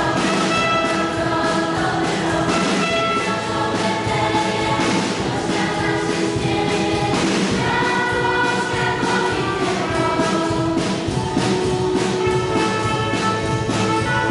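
A choir singing a Christmas carol (kolęda) with a trumpet playing along.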